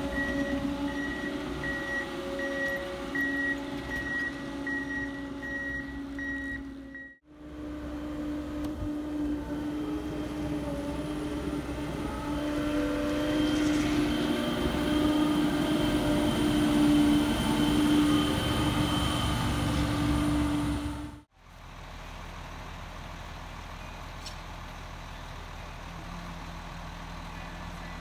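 Prinoth snow groomer's diesel engine running, with its reversing beeper giving a steady run of short beeps for the first several seconds. After a cut the engine runs louder, swelling about halfway through. After another cut it runs quietly and evenly near the end.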